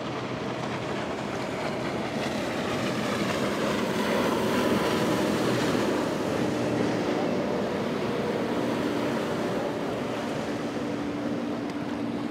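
Sportsman center-console boat's single Yamaha 200 outboard running at speed through choppy water, its steady hum under the rush of hull spray and water. The sound swells toward the middle and eases off somewhat near the end.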